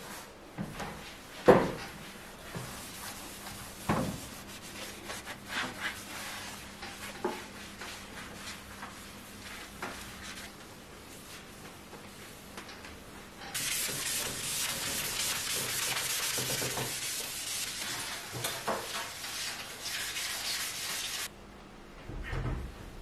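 A cloth wiping and rubbing a kitchen range hood and tiled wall, with scattered knocks and bumps. In the second half a steady rubbing hiss runs for several seconds, starting and stopping abruptly.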